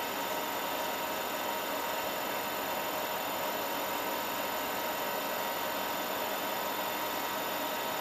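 Steady hum with an even hiss from the chilled-water rig's circulating water pump running, pushing ice water through the hoses.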